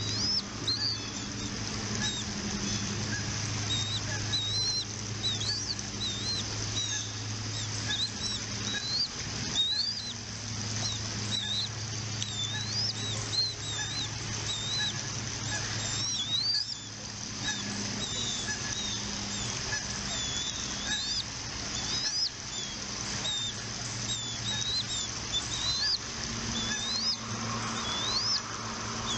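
Bald eagles at the nest giving short, high-pitched rising chirps, repeated every second or so, over a steady low hum.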